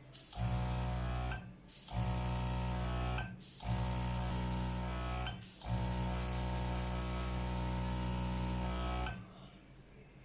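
Hobby airbrush compressor running and spraying in four bursts, each a steady motor hum with hissing air that starts and stops abruptly. The last burst is the longest, about three seconds.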